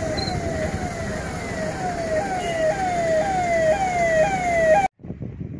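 A siren wailing in fast repeating pitch sweeps, about two a second, over a steady background noise; it cuts off suddenly about five seconds in.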